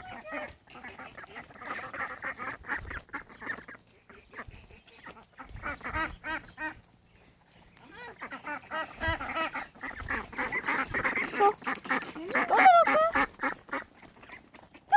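Several ducks quacking in runs of repeated calls, with a couple of short lulls, the loudest calls coming near the end.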